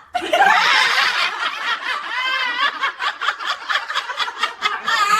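Hearty human laughter, breaking into quick repeated bursts of giggling in its second half.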